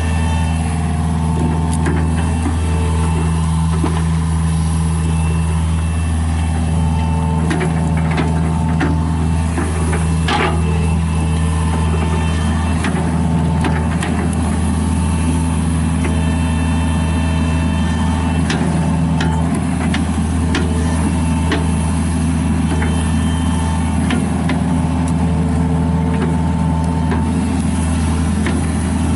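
John Deere 50G mini excavator's diesel engine running steadily, with scattered clicks and knocks over the drone.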